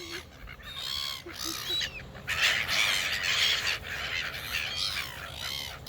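A flock of birds calling over one another, many short, arching calls in quick succession, as they crowd in to be fed.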